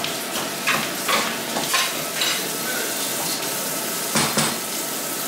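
Wooden spatula stirring and scraping a thick white mash in an aluminium saucepan, in irregular strokes about every half second to second, over a steady hiss from the hob.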